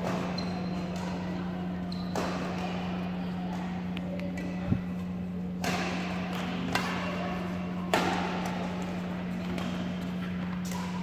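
Badminton rackets striking the shuttlecock in a rally, a sharp hit about every second. A steady low hum runs underneath.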